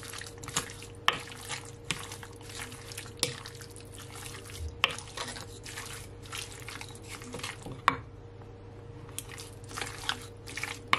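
Wooden spoon stirring raw chicken pieces coated in oil and seasoning in a glass bowl: wet squelching with irregular clicks of the spoon against the glass, pausing briefly about eight seconds in.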